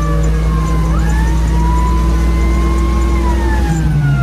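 A vehicle engine running steadily, heard from inside the cab, with a siren wailing over it in slow falling and rising sweeps.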